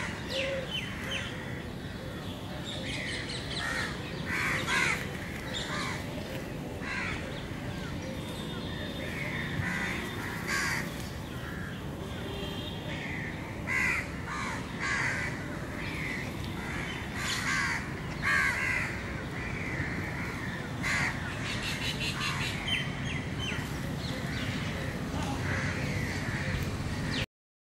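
Crows cawing over and over, one call after another, until the sound cuts off suddenly near the end.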